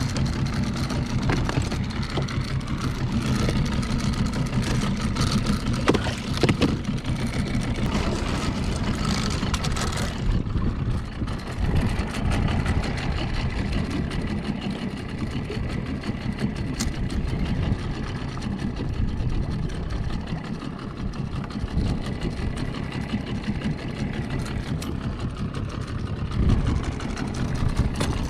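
Small outboard motor on a fishing boat running steadily at idle. A few sharp knocks come about six seconds in, and a high hiss over the engine cuts off suddenly about ten seconds in.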